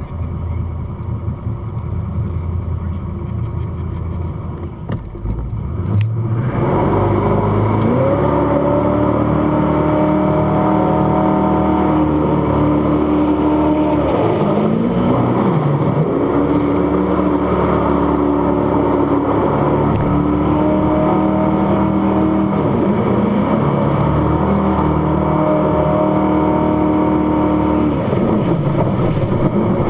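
Jet sprint boat engine rumbling low, then about six seconds in opening up to full throttle and running hard at a high, steady pitch. The pitch drops briefly and climbs back up three times, as the throttle comes off and back on.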